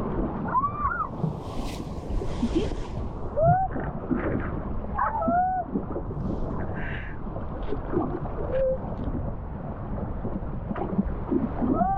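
Steady low rumble, like wind on the microphone, with many short rising-and-falling shouts and calls from people in the distance at a water park.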